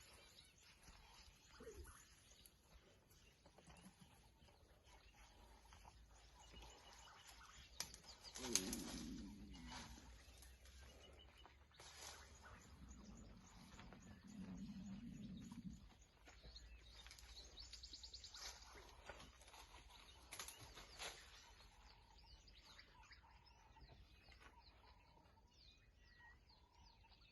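Near silence: faint outdoor ambience with a few soft knocks and rustles, a brief low hum around the middle, and faint bird chirps.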